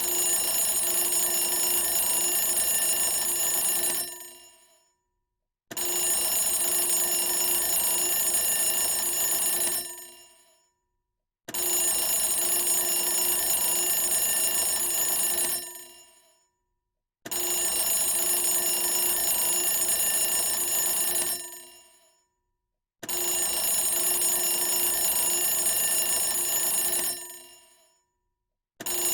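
Bell alarm clock ringing in rings of about four seconds, each fading out over about a second before a short silence, five times over, with a sixth ring starting at the very end.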